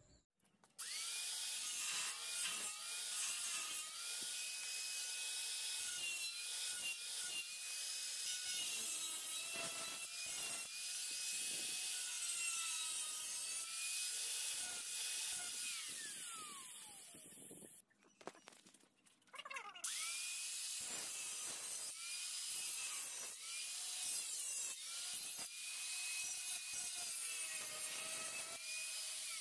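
Electric angle grinder cutting into a steel gate frame: the motor whine rises as it spins up, then wavers under the cut over a steady grinding hiss. It winds down and stops about 16 seconds in, starts again a couple of seconds later, and cuts on until it winds down near the end.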